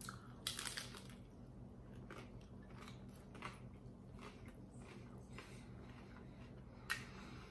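Biting into a hard-shell corn taco, a crunch about half a second in, then chewing with scattered small crunches and mouth clicks. A single sharp click near the end.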